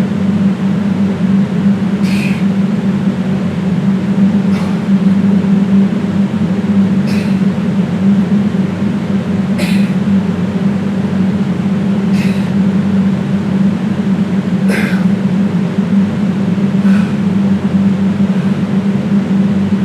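A loud steady low hum with a buzzy overtone, the kind of noise the title warns about, runs throughout. Over it comes a short sharp breath about every two and a half seconds, seven or eight times, keeping time with exercise repetitions.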